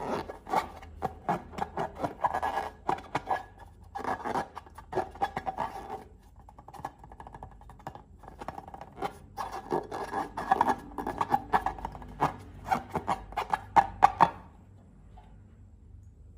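Slime being worked by hand: quick runs of clicks and crackles in two spells, with a lull about six seconds in, stopping about fourteen seconds in.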